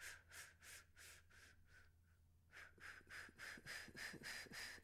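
A woman doing a breath-control exercise: a quick train of short breaths in, about three a second, then after a brief pause a matching train of short breaths out, ten in and ten out to fill and then empty the lungs. The breaths are faint.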